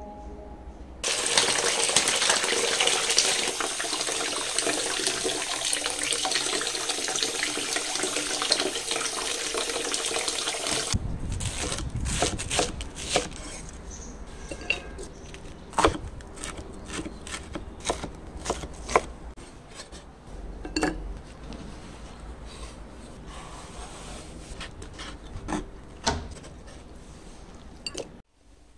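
Water running steadily from a tap for about ten seconds, then a cleaver slicing cabbage on a wooden chopping board: irregular sharp knocks of the blade against the board.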